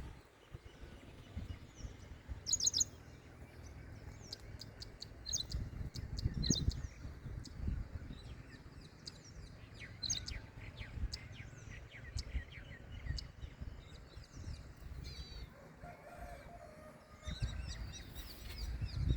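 Small birds chirping and twittering: short, high chirps that come in scattered clusters, over a low rumble.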